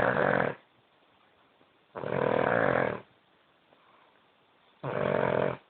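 A dog snoring in a slow, even rhythm: a snore dying away at the very start, then two more about a second long, each roughly two and a half seconds after the last.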